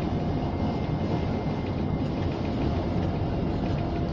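Steady engine and road noise of a Scania lorry cruising on a highway, heard inside its cab, with a low rumble and a faint steady tone running through it.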